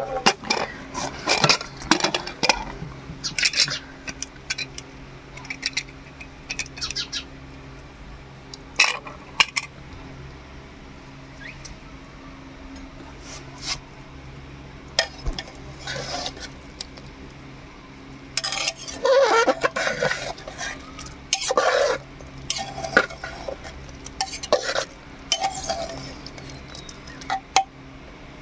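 Metal clatter of an aluminium pressure cooker: its lid being worked open and lifted off in the first few seconds, then a ladle clinking and scraping in the pot, busiest around two-thirds of the way through. A steady low hum runs underneath.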